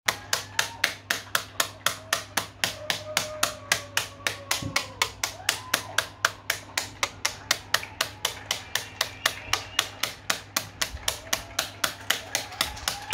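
Steady, rhythmic clapping close by, about three to four claps a second, in applause for NHS workers. Faint wavering tones sound in the background.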